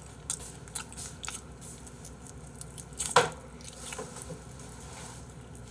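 Close-up mouth sounds of eating a buffalo chicken wing: wet chewing and small lip smacks, with one sharper smack about three seconds in.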